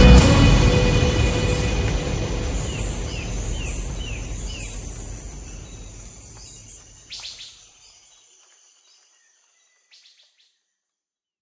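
Background music fading out over about eight seconds, with a run of five short chirps partway through, then near silence.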